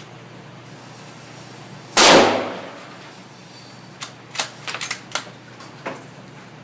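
.308 bolt-action rifle firing one shot about two seconds in, with a short echoing tail. A few seconds later come several quick metallic clicks and clacks: the bolt being worked to chamber the next round.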